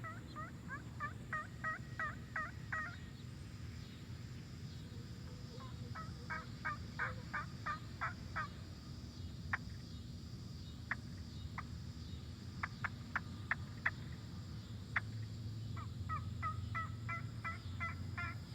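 Turkey trumpet call of ancient bog oak with an orange acrylic mouthpiece (Lee Chadwick MisFire Game Calls), blown by suction: a run of about eight yelps, a second run of yelps about six seconds in, then a few single short clucks spaced apart, and a last run of yelps near the end.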